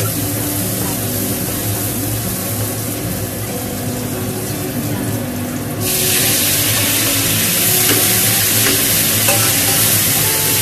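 Chopped chili, garlic and ginger sizzling in hot oil in a nonstick wok, stirred with a wooden spatula. Nearly six seconds in, mushrooms are tipped in and the sizzle suddenly gets louder and hissier.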